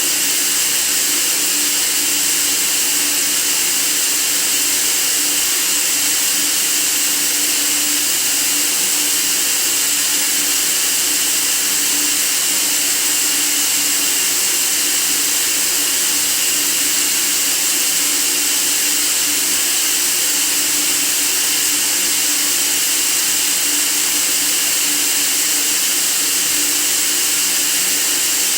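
White noise for sleep: a loud, steady, unchanging hiss, strongest in the high range.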